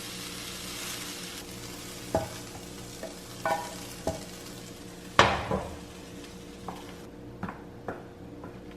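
Food sizzling in a pan, the hiss fading out about a second and a half in. It is followed by a series of sharp clinks and knocks of a utensil against cookware, the loudest about five seconds in.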